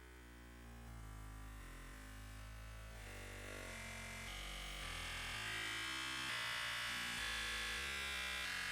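Background electronic music with buzzy synth tones and a stepping bass line, growing louder about halfway through.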